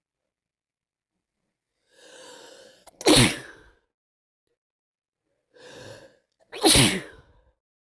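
A person with a cold sneezing twice, about three and a half seconds apart. Each sneeze is a sharp, loud burst after a gasping in-breath.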